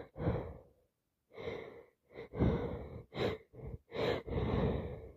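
A person with a summer cold sniffing and breathing hard in a run of about eight short, noisy breaths.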